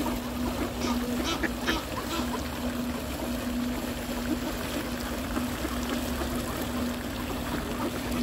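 Flock of mallards feeding, their bills dabbling and pecking in shallow water on ice: a continuous wet slurping and trickling, with a few short sharp clicks about one to two seconds in. A steady low hum runs underneath.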